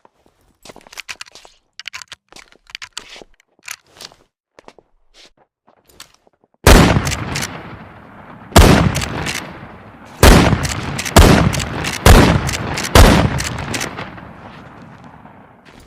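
Rochester 1873 rifle: light mechanical clicks of the gun being handled, then six shots fired one to two seconds apart, each with a long echoing decay.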